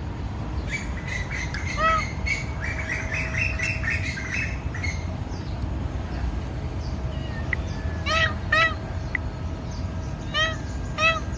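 Kittens mewing: short, high, arched cries, one about two seconds in and then in pairs near the end, with a run of rapid high chirps during the first five seconds.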